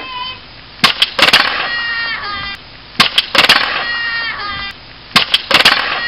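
Aluminium kick scooter and rider crashing onto concrete: a sharp clatter of impacts, then about a second of scraping. The same crash sound comes three times, about two seconds apart, each ending in an abrupt cut.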